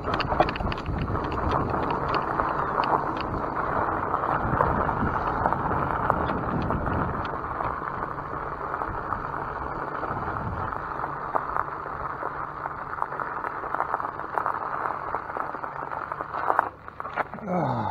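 Mountain bike being ridden on a dirt trail: steady rush of tyre and wind noise with frequent rattles and clicks from the bike over rough ground.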